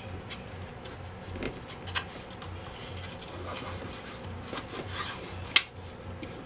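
Hands rubbing and pressing vinyl wrap film onto a fire helmet's shell and brim, with small handling clicks and one sharp tap about five and a half seconds in.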